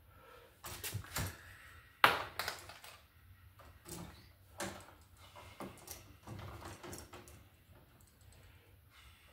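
Pliers and stiff copper wires clicking and scraping against a wall switch and its electrical box as the wires are bent and hooked onto the switch terminals. Irregular small clicks and rustles, the loudest a sharp knock about two seconds in.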